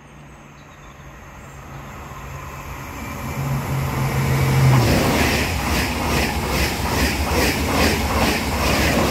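Passenger train approaching and passing at speed. The sound builds steadily, then about five seconds in becomes a loud rush with the wheels clacking over the rail joints in a quick regular rhythm, about two or three clacks a second.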